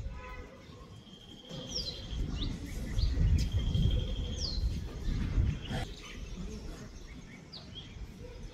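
Songbirds calling across the valley: several held, steady whistled notes and a few quick falling whistles, over a gusting low rumble of wind on the microphone.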